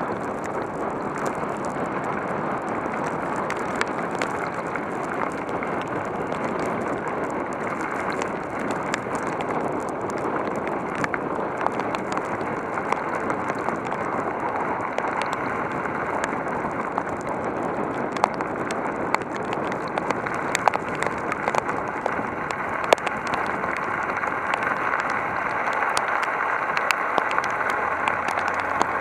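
Heavy rain falling steadily, with sharp ticks of individual drops striking a hard surface that come more often in the second half.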